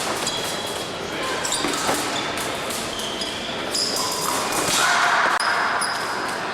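Fencers' shoes squeaking in short, high chirps on the piste during an épée bout, over a steady background of voices in a large hall.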